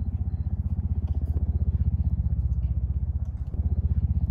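A low engine rumble with a fast, even pulse that runs steadily and swells a little about halfway through.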